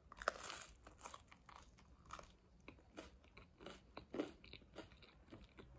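A person biting into a slice of homemade pizza and chewing it, with many small, irregular crunches and one louder crunch about four seconds in. The base was baked a little too long underneath and is crisp.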